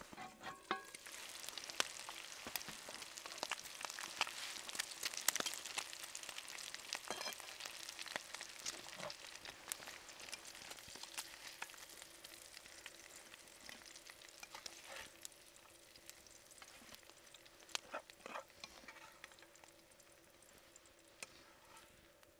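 Food sizzling in a frying pan on a wood-fired Firebox stove, with short clicks and scrapes of a spatula stirring it in the pan. The sizzle is strongest in the first several seconds and dies down toward the end.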